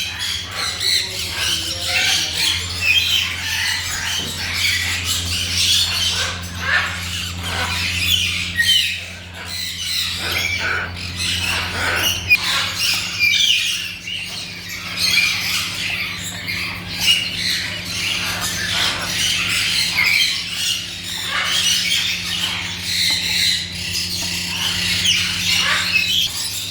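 A flock of birds squawking and chattering all at once, a dense, unbroken jumble of short calls, over a steady low hum that stops near the end.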